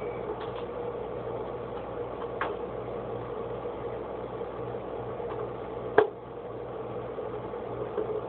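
Phillips screwdriver working a screw in the metal rear panel of an Avaya IP Office 500 v2 control unit: a few light clicks over a steady hum, with one sharper click about six seconds in.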